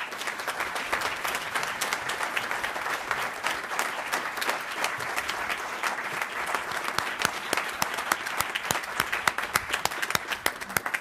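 Audience applause: many hands clapping at a steady level for about ten seconds.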